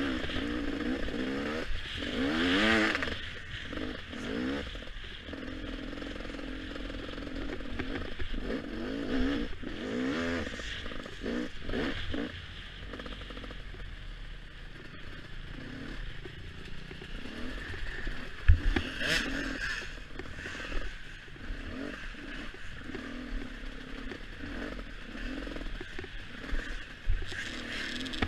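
A Beta 300 RR two-stroke enduro motorcycle engine, ridden hard off-road: it revs up and drops back again and again as the throttle is worked. A few sharp knocks come through, the loudest about two-thirds of the way in.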